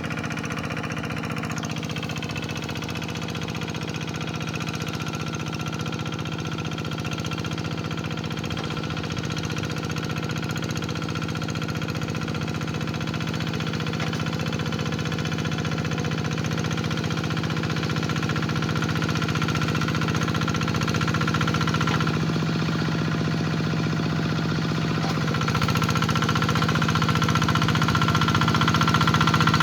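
Hand tractor engine running steadily while ploughing, growing gradually louder.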